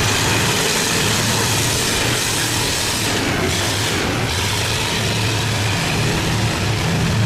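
A boat's engine running steadily with a low, even drone, under a constant rushing noise.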